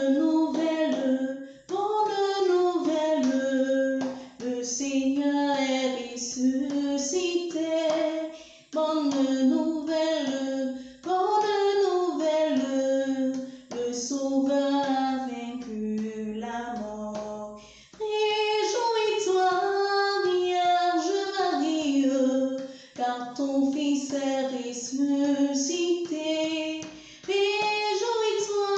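A woman's solo voice singing an Easter resurrection hymn unaccompanied, in phrases of a few seconds broken by short pauses for breath.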